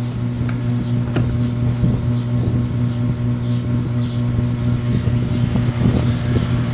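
A steady low hum, with a few faint clicks and light knocks over it.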